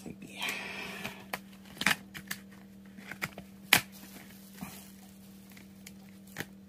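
Plastic-and-card packaging of a catnip bubble toy being handled and opened: a crinkling rustle about half a second in, then scattered sharp clicks and taps, the loudest a little under four seconds in.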